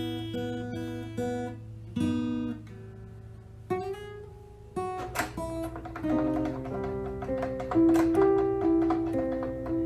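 Background music: plucked acoustic guitar playing a melody, with a few sharp taps joining in about halfway through.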